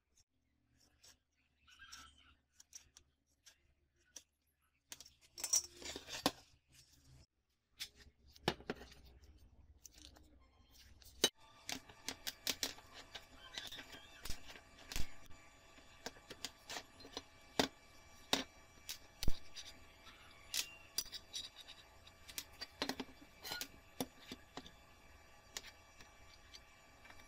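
Marker squeaking and scratching on steel plate, then small steel parts clicking, clinking and scraping as they are handled on a steel workbench. A faint steady hum comes in about a third of the way in.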